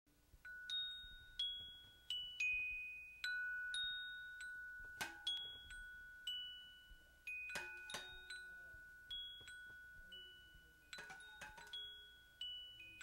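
Quiet music of sparse bell-like notes, struck one at a time about once or twice a second and left to ring out. A few sharper clattering hits fall among them.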